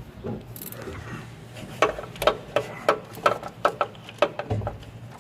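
A dozen or so sharp knocks and clicks at an uneven pace, starting about two seconds in and lasting about two and a half seconds: someone climbing up on a tractor, boots and hands knocking on its metal.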